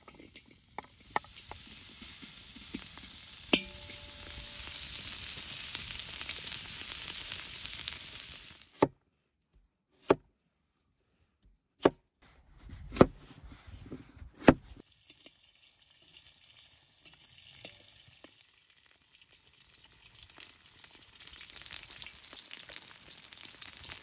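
Cubes of fat sizzling and frying in a hot cauldron. The sizzling stops abruptly, followed by about five sharp, separate knocks of a cleaver cutting peeled potatoes on a wooden board. Near the end the sizzling of the frying fat returns.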